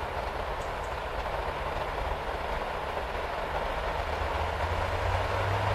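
ED4M DC electric multiple-unit train approaching along the line: a steady rumble that grows slowly louder, with a low hum coming up near the end.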